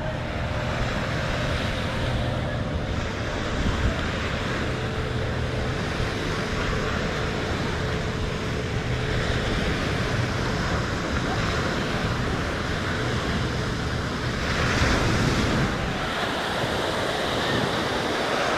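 Ocean surf washing onto the beach, with wind rumbling on the microphone. The wash swells louder about nine seconds in and again around fifteen seconds in.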